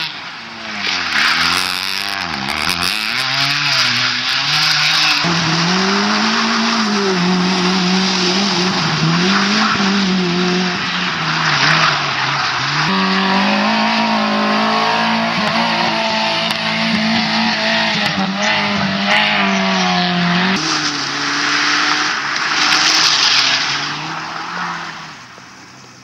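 Small rally cars driven hard on a tarmac course, one after another: engines revving high and dropping again and again through the gears and corners, with tyres squealing. The engine note changes abruptly a few times as one car gives way to another.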